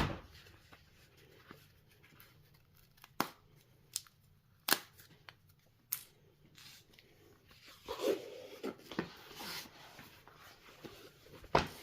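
Packaging being handled: a few separate sharp clicks and taps, then a couple of seconds of rustling and tearing about eight seconds in, as the play mat is taken from its wrapping.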